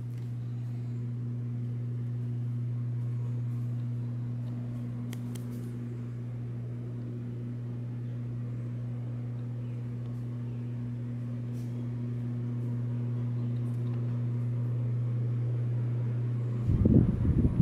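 Steady low mechanical hum indoors. A short louder low rumble comes near the end.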